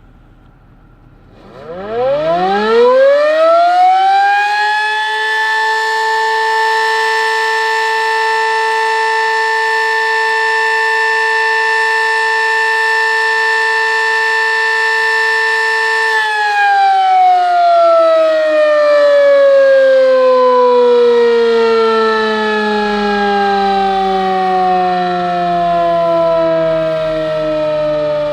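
Sterling M-10 electromechanical tornado siren, its 8/16-port rotor giving two tones an octave apart, sounding a short alert. About a second and a half in it winds up quickly to a steady pitch. It holds there for about twelve seconds, then winds down with a slowly falling pitch.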